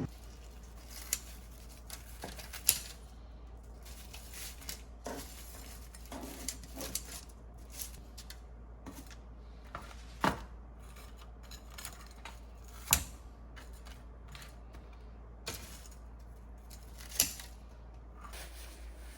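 Scattered light clicks and taps of small hard objects being handled, with four sharper knocks spread through it, over a low steady hum.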